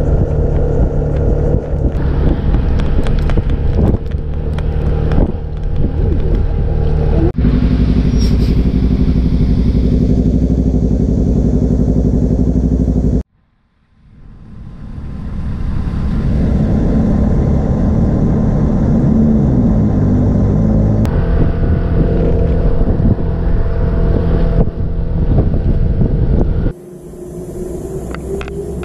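Motorbike engine running under way, mixed with wind and road noise on a handlebar-mounted action camera. The sound drops out abruptly about a third of the way in and fades back in. Near the end it cuts to much quieter surroundings with a faint high hiss.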